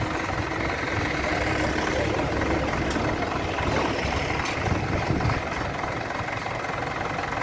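JCB backhoe loader's diesel engine running steadily while its front loader bucket is held up against the side of a log-laden lorry. A couple of faint knocks sound about three and four and a half seconds in.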